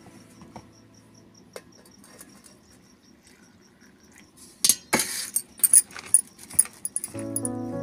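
Steel kitchenware clinking and clattering, a quick run of sharp metallic knocks lasting a couple of seconds about halfway through, as a steel plate is handled next to a steel mixing bowl. Before it, only faint rustling of hands mixing vegetables into gram flour; background music comes back near the end.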